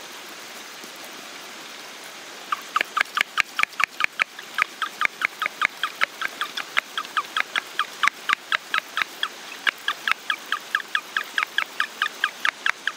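A thin stream of water from a spray wand hisses steadily onto soil and a buried metal figure. From about two and a half seconds in, a rapid, even series of short high chirps, about four or five a second, comes in louder than the water and runs on to the end.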